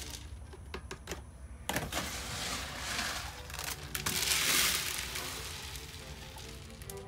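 Chicken feed poured from a scoop into a hanging chicken feeder: a rush of pouring grain about two seconds in and another about four seconds in, with a few light clicks and knocks of the scoop in the first second.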